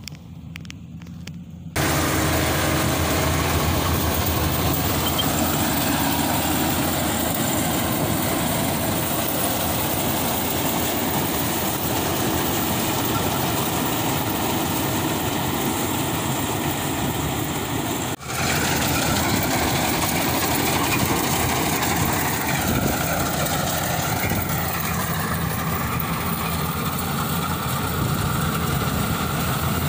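Rice combine harvester running steadily under load, a loud engine hum with machinery noise. It cuts in suddenly about two seconds in and drops out for a moment about two-thirds of the way through.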